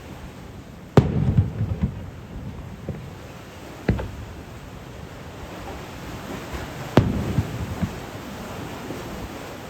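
Aerial fireworks shells bursting: three sharp booms about three seconds apart, the first and third each trailed by a short rumble of smaller crackling bursts.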